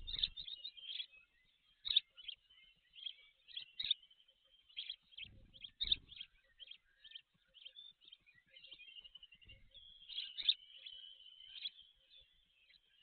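Birds chirping and trilling in quick, high, repeated notes, broken by a few brief low rumbles.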